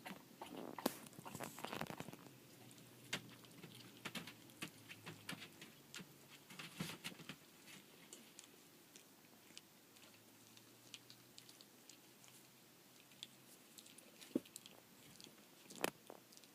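Eighteen-day-old collie puppies making soft, irregular clicks and rustles as they move about and mouth at things, with a few louder clicks near the start, the middle and the end.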